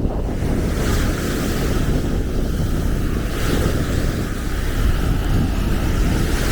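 Wind buffeting the microphone with a steady low rumble, over the hiss of small waves washing onto the beach, which swells a few times.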